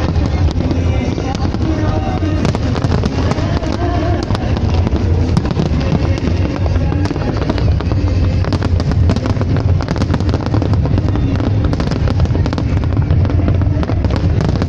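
Fireworks crackling and popping, many sharp pops in quick succession throughout, with music and voices underneath.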